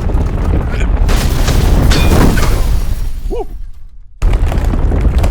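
Loud, continuous low rumbling noise from a cartoon soundtrack, with a short squeaky cry about three and a half seconds in. The rumble fades, cuts off abruptly about four seconds in, then comes straight back at full strength.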